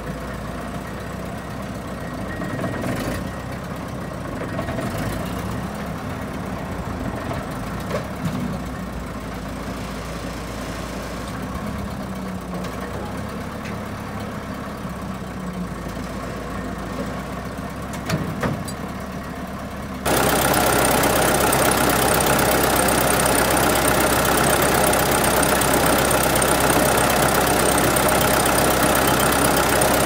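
Case 1740 skid steer's engine running steadily while the loader arms lift, with a few short knocks. About two-thirds of the way in it turns suddenly louder and fuller as the engine is heard close up in the open engine bay.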